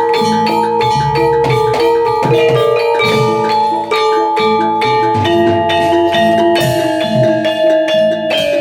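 Javanese gamelan playing jaranan accompaniment: rapid, interlocking strikes on bronze mallet instruments with ringing held tones, over drum patterns.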